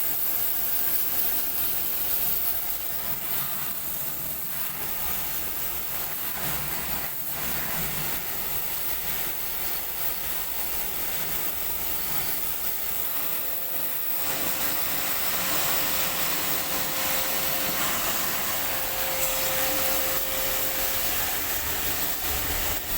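Air conditioner running: a steady rush of blown air, a little louder and brighter from about halfway, with a faint steady hum now and then in the second half.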